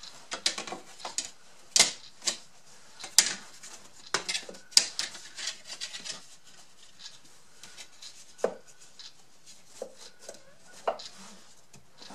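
Crinkling and crackling of a thin clear plastic sheet as it is handled and pressed flat by hand in a shallow wooden drawer, with light rubs and taps. It is busiest in the first half and thins out to a few soft knocks later.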